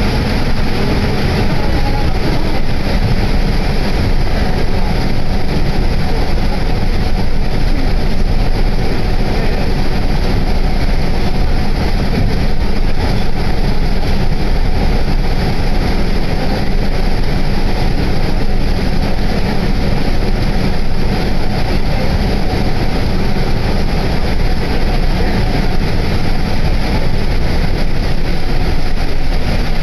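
Steady running noise inside a Yutorito Line guideway bus: the bus's engine and tyres on the elevated guideway, a constant low rumble with hiss over it.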